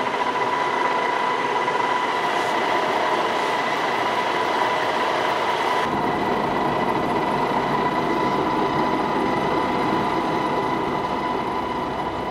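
Giant Cincinnati milling machine face-milling the steel face of a Kohlswa anvil with a dry-running carbide cutter. The cut runs steadily with a high whine, and a lower rumble joins about halfway through.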